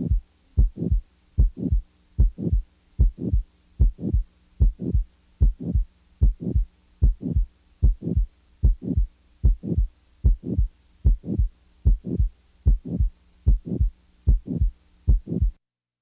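Heartbeat recorded through a stethoscope on auscultation: a steady rhythm of paired lub-dub sounds (first and second heart sounds), a little more than one beat a second, over a faint steady hum. It stops shortly before the end.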